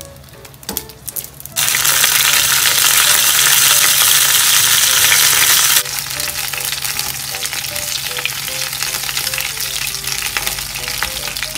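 Cornstarch-dusted, pre-boiled swimming crabs frying in hot sesame oil in a frying pan over high heat. The sizzle jumps loud about a second and a half in as more crabs go into the pan. About six seconds in it settles to a steadier sizzle with crackles as the crabs are turned with chopsticks.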